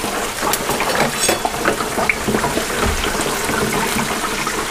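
Hot peanut oil in an electric turkey fryer sizzling and crackling steadily under a freshly fried whole chicken draining in the raised basket.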